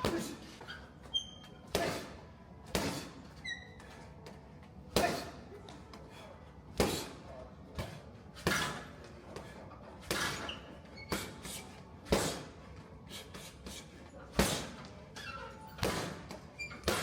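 A string of irregular knocks and thuds, a dozen or so spread a second or two apart, with a few brief high squeaks in the first few seconds.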